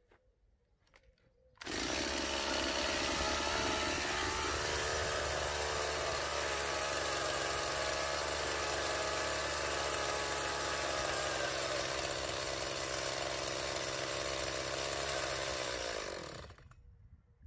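Stihl MS 170 chainsaw's small two-stroke engine running steadily. It comes in suddenly under two seconds in and winds down to a stop near the end.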